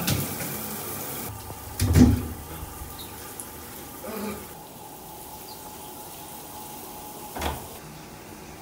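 Steady rush of running water in a bathtub, with a heavy thump about two seconds in and a sharper knock near the end.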